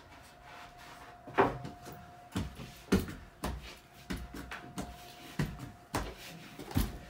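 Footsteps climbing stairs: a run of about nine thuds, one every half to two-thirds of a second.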